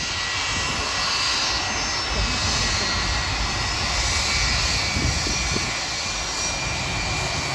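Jet airliner engines running: a steady high whine over a low rumble, swelling over the first second and then holding.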